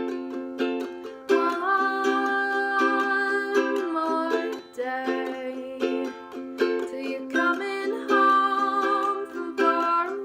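A strummed acoustic string instrument playing a steady chord rhythm, with a woman singing two long phrases over it: the first starts a little over a second in, the second about halfway through.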